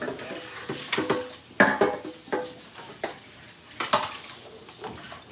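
A metal utensil stirring in a pot, clinking against the cookware about once a second, several strikes leaving a short ring.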